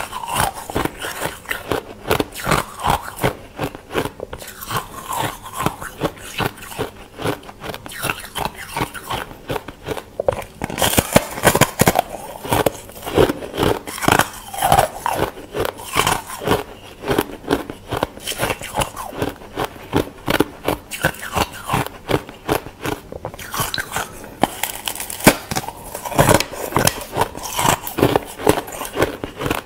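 Thin ice being bitten and chewed in quick, continuous crunches.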